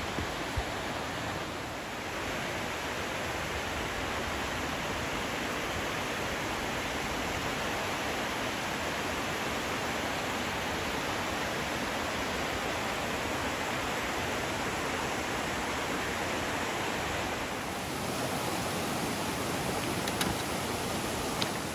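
Steady rush of a mountain creek pouring over rocky cascades and small waterfalls.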